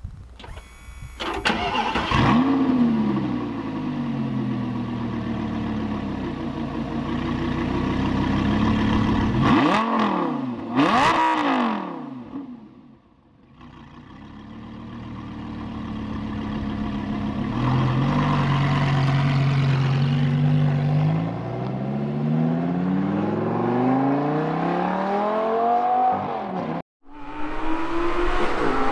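Lamborghini Gallardo LP560-4's V10 through a straight-pipe exhaust, started up with a rev flare about two seconds in, then idling and revved sharply twice around ten seconds in. After a short lull the engine note climbs slowly and steadily in pitch over several seconds. It breaks off abruptly near the end and comes back.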